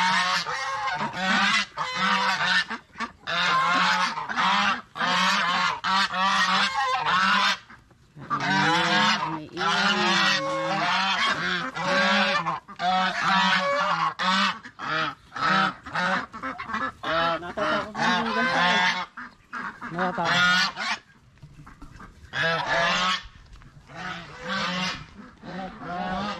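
A flock of white domestic ducks quacking loudly and nonstop, many calls overlapping, with short lulls about eight seconds in and again around twenty seconds.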